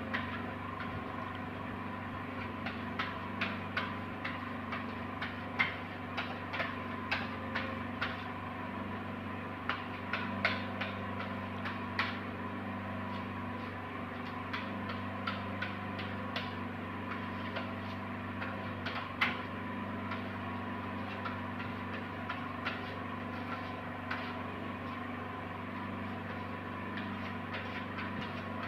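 A grouting tool tapping and clicking against glazed ceramic wall tiles as grout is worked into the joints: irregular light clicks over a steady hum.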